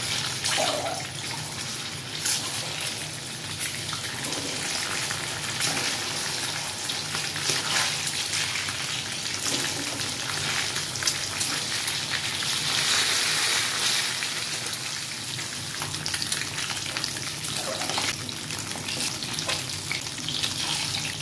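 Peeled boiled eggs deep-frying in hot oil in a kadhai: a steady sizzle with dense crackling and small pops.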